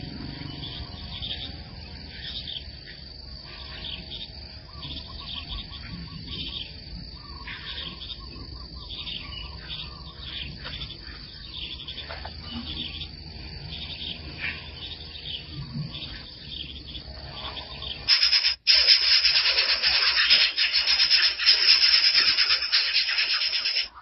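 Faint chirps and calls of small birds. About 18 s in, a much louder harsh, scratchy hiss cuts in suddenly.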